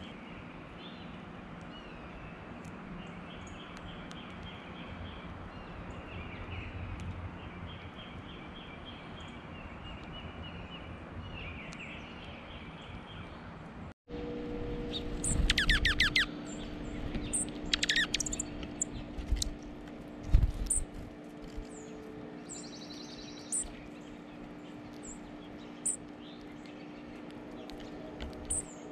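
Small songbirds at a feeder. In the first half, faint trilled songs repeat every few seconds over a low rumble. In the second half comes a burst of close, sharp chip calls and twitters, with a few knocks on the wooden feeder tray, the loudest about two-thirds of the way in.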